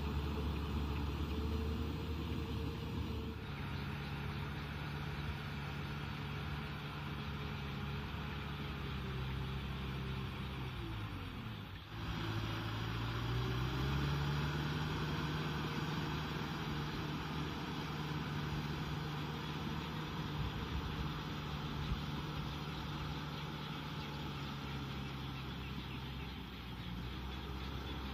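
Kubota M6040SU tractor's diesel engine running steadily under load while pulling a rotavator through a flooded rice paddy, the rotor churning water and mud. The engine note drops about ten seconds in, breaks off abruptly, then picks up again.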